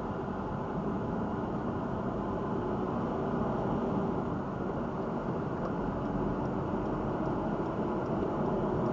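Steady engine and road noise heard inside a moving car's cabin, a low even rumble with a faint hum running through it.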